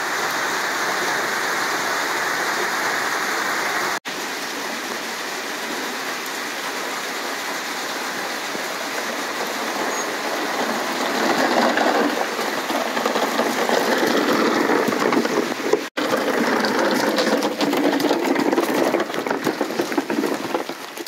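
Heavy downpour: a steady hiss of rain falling, growing louder about halfway through. It breaks off for an instant twice.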